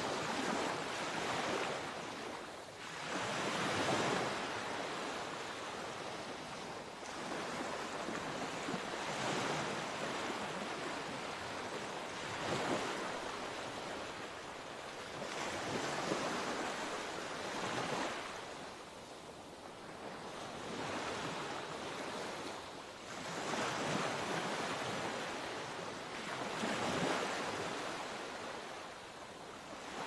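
Small waves breaking and washing onto a sandy shore, the wash swelling and fading every few seconds.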